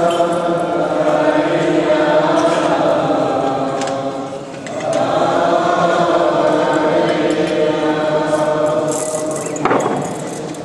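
Many voices singing a Chaldean liturgical chant together in two long phrases, with a breath between them about four and a half seconds in. The singing fades near the end, after a short sharp knock.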